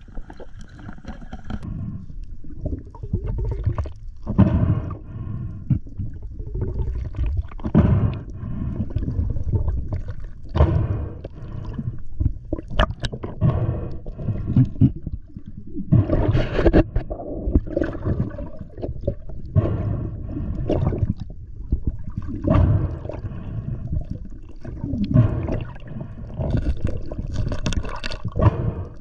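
Muffled underwater rushing and gurgling of water against a camera housing, coming in irregular surges as the diver moves with a speared fish.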